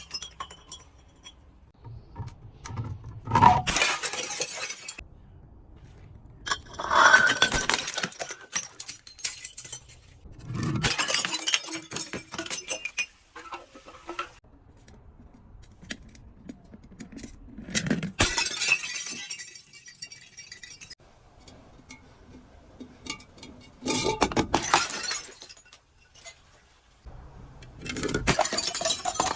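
Glass bottles breaking: about six separate shattering crashes a few seconds apart, with fainter clinks of glass shards between them.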